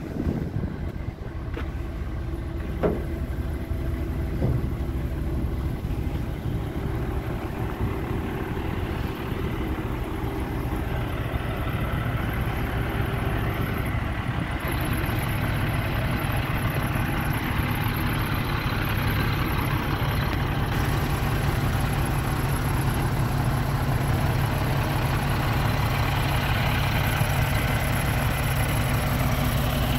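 Crane truck's diesel engine running steadily, getting louder with more hiss about halfway through. A few sharp metal clinks in the first few seconds.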